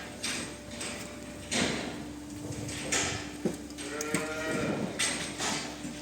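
Cattle on a dairy farm calling: a high, wavering, bleat-like call, typical of a calf, starting about four seconds in. Under it run a steady low hum and several short, noisy rasps.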